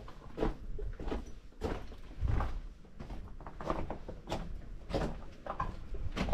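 Footsteps: a run of irregular knocks and scuffs, roughly one every half second.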